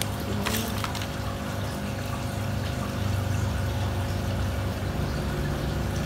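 Water running steadily under a low, even pump hum, with a couple of light clicks about half a second in.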